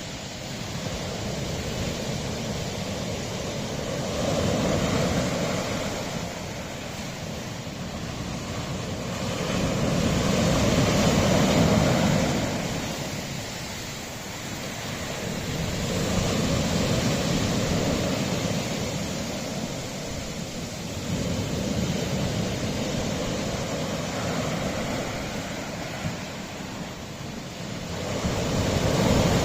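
Sea waves washing against a rocky shore, surging and falling back in slow swells about every six seconds.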